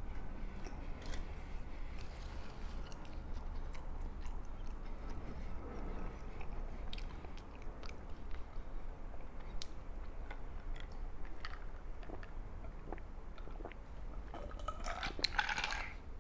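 A person chewing a soft sweet bread (concha) close to the microphone, with small wet mouth clicks over a low steady hum. The mouth sounds get fuller about a second and a half before the end.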